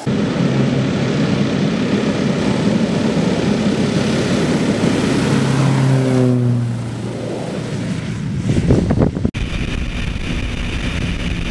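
Air Tractor agricultural plane's engine and propeller at takeoff power on the takeoff roll, with the pitch dropping as the plane passes close by about six seconds in. About nine seconds in it cuts to steady engine and wind noise heard from on board the plane in flight.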